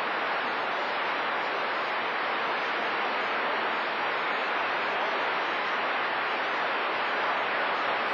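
Steady static hiss from a CB radio receiver on channel 28, squelch open, with no station coming through between skip transmissions.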